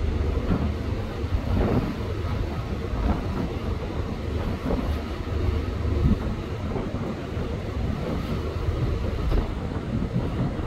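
Wind buffeting the microphone over a steady low rumble of a ship under way, with a few brief gusty thumps.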